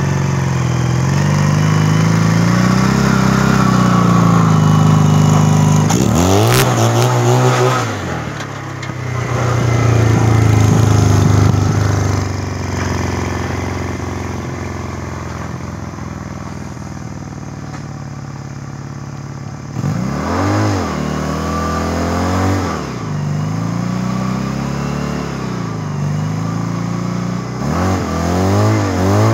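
Home-built ATV's 250cc engine running under load and revving up and down as it is driven, with a quick rise and fall of revs about six seconds in, a steadier stretch in the middle, and a run of short rev blips in the last third.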